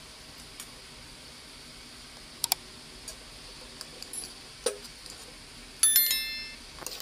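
A metal ladle clinks lightly against an aluminium cooking pot a few times. Near the end it strikes the pot hard, with several bright tones ringing out for about half a second.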